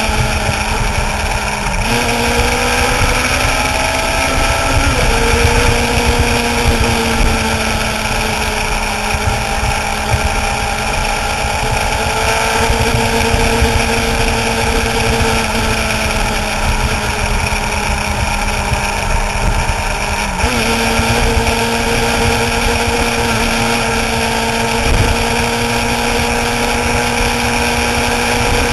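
Suzuki GSX-R sportbike's inline-four engine running at a steady cruising speed over a constant rush of wind and road noise. Its pitch dips briefly twice, about two seconds in and about twenty seconds in, then settles again.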